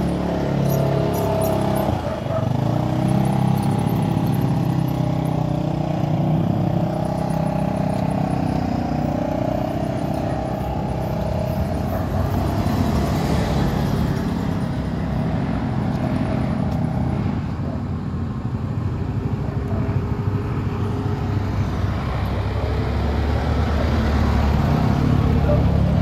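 Motor vehicle engine running steadily while travelling along a road, with road noise.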